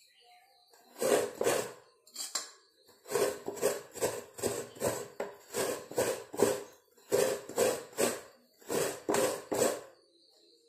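Fresh coconut half scraped against a hand-held serrated coconut grater blade over a steel plate: quick scraping strokes, about two to three a second, in runs with short pauses.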